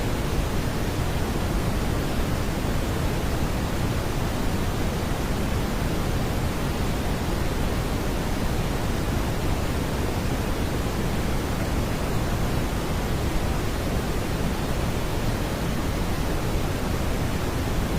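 Steady, unbroken brown noise (Brownian noise), a smooth hiss weighted toward the low end, with no tones or changes.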